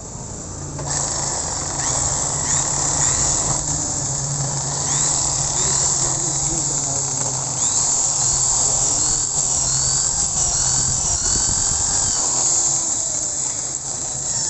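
An electric drill with a 5/32-inch bit cuts into an aluminium motorcycle carburetor body, drilling out the stripped air-screw hole so it can be re-centred and tapped with new threads. The motor hums steadily, and from about a second in the bit grinds through the metal with repeated short, high squeals.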